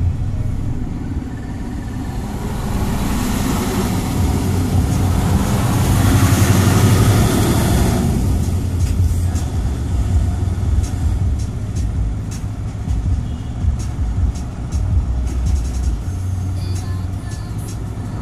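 Engine and road rumble heard from inside a moving vehicle, with a loud rushing swell about three to eight seconds in as an oncoming dump truck goes past. Scattered light clicks follow in the second half.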